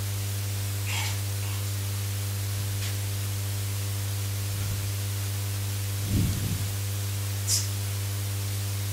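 Steady electrical hum with a hiss from the microphone and recording chain. A few faint squeaks of a marker drawn across a whiteboard sound over it.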